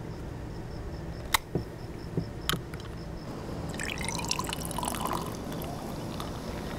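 Cola poured from a can into a glass, splashing and fizzing from about three seconds in, after two sharp clicks.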